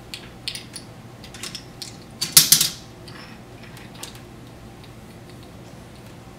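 Plastic Connect 4 checkers clicking and clattering: scattered light clicks, with a louder rattling clatter about two and a half seconds in.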